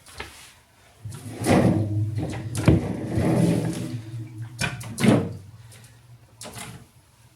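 Bottled water being loaded into a mini fridge: a series of knocks and clunks as bottles are set on and slid along the shelves, with rattling and plastic rustling in between.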